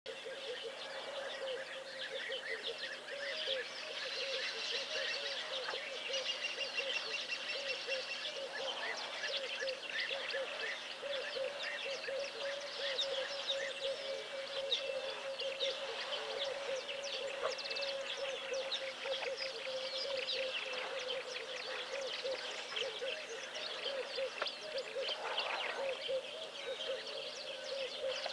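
Continuous outdoor chorus of many birds chirping and calling at once, dense and unbroken, with a steady wavering lower call running beneath it.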